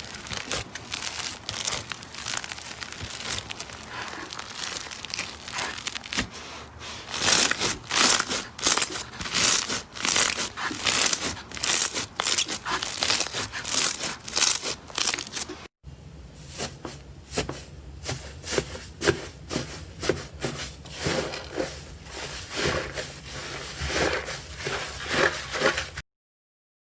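Slime being squeezed and stretched by hand, giving a dense run of irregular crackles and pops. The sound breaks off briefly about halfway, goes on in a slightly different way, and stops abruptly near the end.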